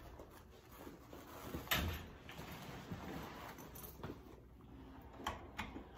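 A room door and a rolling suitcase being handled: a few soft knocks and clicks, the loudest about two seconds in.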